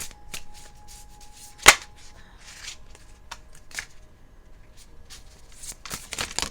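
A deck of tarot cards being shuffled by hand: a run of short riffling clicks and rustles, with one sharp loud snap a little under two seconds in.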